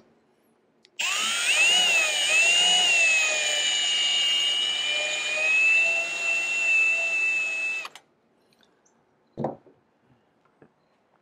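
Power drill spinning a countersink cutter in a stop cage, cutting a countersink for a #8 screw into the aluminium wing spar around a tank-attach nutplate hole. It starts about a second in, with a whine that wavers in pitch at first, then steadies and runs for about seven seconds before stopping; a light knock follows shortly after.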